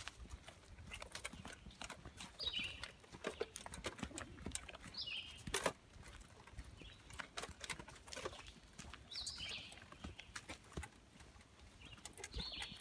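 Chipmunks calling: short high chirps that drop in pitch, repeated about every three seconds, over light footsteps crunching on the trail.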